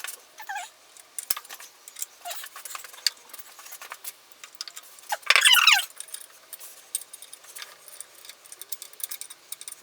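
Metal parts of an antique post drill clinking and knocking as they are handled and fitted, with a short squealing scrape falling in pitch about five seconds in, the loudest sound.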